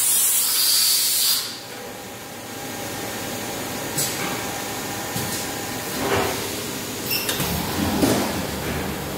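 Hyundai SKT21LM CNC lathe working: a loud spray hiss cuts off about a second and a half in, leaving the machine's steady hum. A sharp click follows, then two brief rising whines of the machine's motors near the end.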